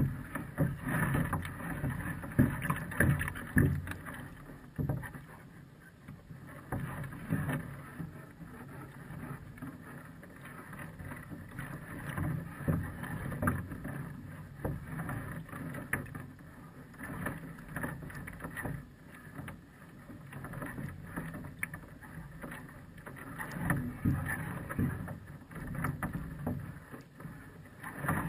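Small waves lapping and slapping against a platform floating at the waterline, in uneven splashes that come and go.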